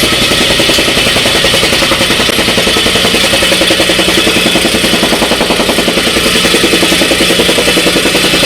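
Jumping-jack tamping rammer running steadily, its engine driving a rapid, even pounding of the compactor foot.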